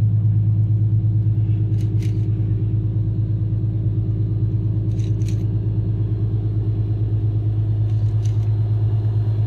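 Lexus engine idling with a steady, loud, deep rumble, a racket with a fast, even pulse.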